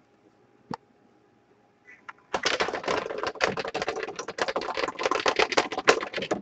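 Rapid run of sharp clicks, several a second, starting a little over two seconds in: a stack of cards being counted off one by one to the 27th to pick a team.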